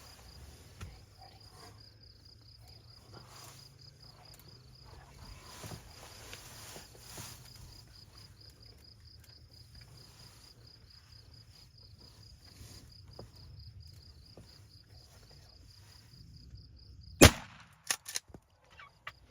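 A single loud shotgun shot at a turkey about seventeen seconds in, followed by a few lighter knocks. Before it, an insect trills faintly in a fast, even pulse.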